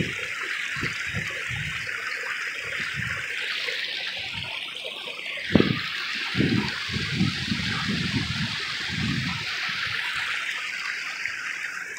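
A creek swollen by heavy rain, rushing steadily. Over it come irregular low thuds, with a sharp knock about five and a half seconds in and a cluster of thuds after it.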